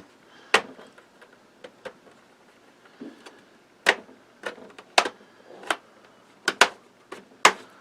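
Snap-fit clips of a Dell Inspiron 15 3580's plastic bottom case releasing as a plastic pry tool is worked around its edge: sharp plastic clicks and snaps at irregular intervals, about ten in all, with faint scraping between them.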